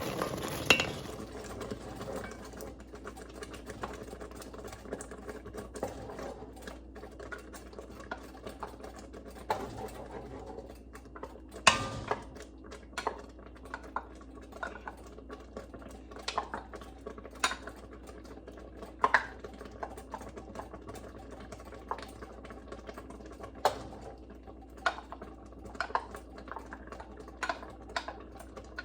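A stirring utensil knocking and scraping against a pan in irregular clicks, as honey is stirred into the hot, boiling-up marionberry jam mixture.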